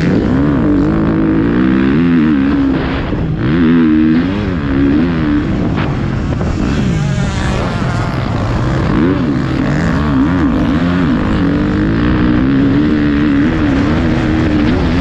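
Motocross bike engine heard close from onboard, revving up and down as the rider accelerates, shifts and eases off through the track's turns, the pitch climbing and falling several times before holding steadier near the end.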